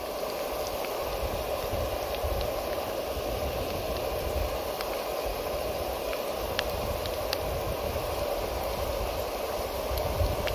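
Diced onion, capsicum and green chillies frying in oil in a pan, a steady sizzle, with a few faint clicks.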